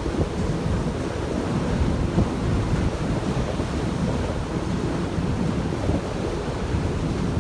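Gale-force wind buffeting a camera microphone on a cruise ship's deck: a steady, loud rumbling rush with no let-up.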